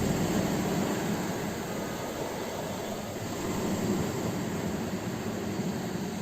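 Ocean waves breaking on a shore: a continuous rushing surf that swells louder at the start and again about four seconds in.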